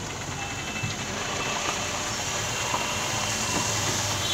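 Road traffic on a waterlogged street: vehicle engines running over a steady hiss of wet-road noise, growing slightly louder.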